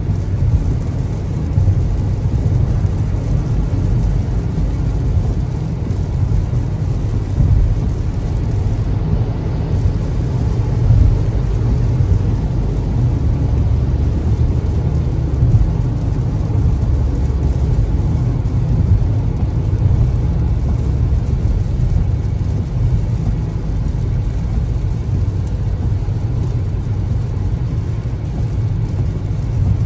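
Car driving on a rain-soaked highway, heard from inside the cabin: a steady low rumble of road and engine noise with a hiss of tyres on the wet road and rain.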